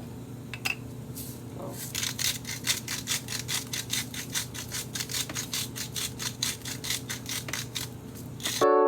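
Quick rhythmic scraping, about four or five strokes a second, as ground beef is seasoned with salt, over a low steady hum. Synth-piano music chords come in suddenly near the end.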